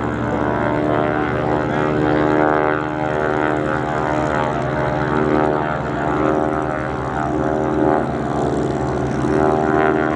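Boeing Stearman biplanes in flight, their radial engines and propellers giving a steady drone at an even pitch.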